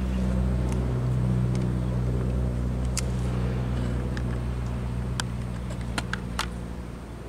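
A motor engine running with a steady low drone that fades away over the last couple of seconds, with a few sharp clicks in the second half.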